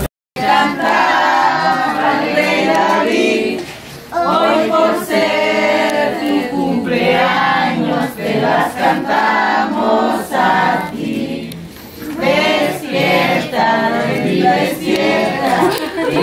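A small group of people singing a birthday song together, with short breaks between verses about four seconds in and again about twelve seconds in.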